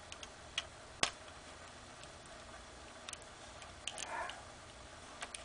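Scattered light clicks and taps from jumper wires being handled and pushed onto an Arduino's header pins, irregularly spaced, the sharpest about a second in, with a brief rustle around four seconds.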